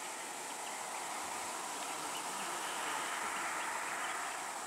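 Steady insect drone, a little louder in the middle and easing off near the end.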